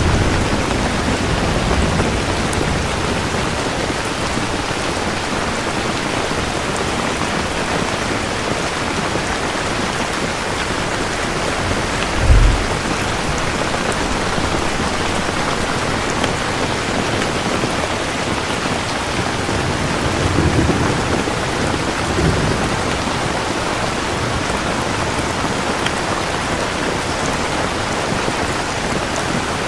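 Steady heavy rain with rolls of thunder: a short low rumble near the start, a sharp thunderclap about twelve seconds in, and further low rumbles a little after twenty seconds.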